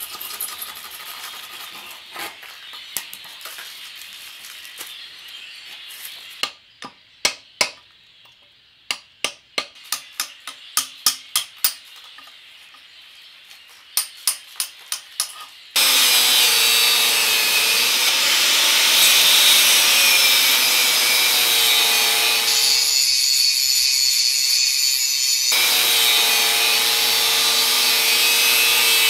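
Metal scraping with a few knocks, then a run of sharp hammer blows on a cold chisel, about two to three a second, cutting a rusted welded-on guard off the steel axle housing of a Land Rover Series 1 rear differential. About halfway through, an angle grinder fitted with a flap disc starts grinding back the rust and weld, running loud and steady with its pitch wavering under load.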